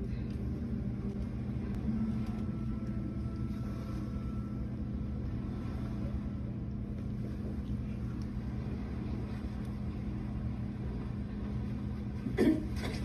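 Steady low rumble from a film soundtrack with a few faint held low tones under it, and a brief louder sound near the end.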